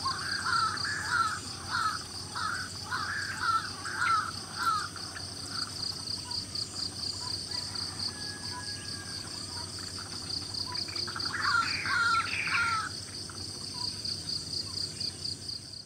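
Birds calling outdoors in short, harsh, repeated notes: a run of them over the first few seconds and another burst near the end, over a steady high pulsing sound.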